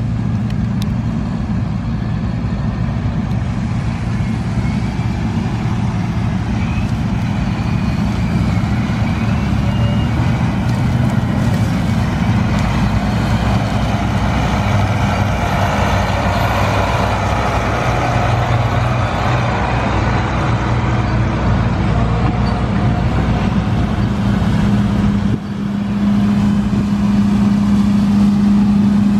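Heavy diesel farm machinery running steadily under load. The sound dips briefly about 25 seconds in, and a steadier, stronger hum follows.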